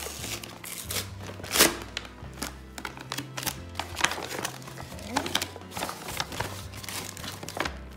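A brown kraft-paper bag rustling and crinkling as it is torn open at its paper label seal and handled, with plastic-wrapped packages shifting inside; a sharp crackle about one and a half seconds in is the loudest. Steady background music plays underneath.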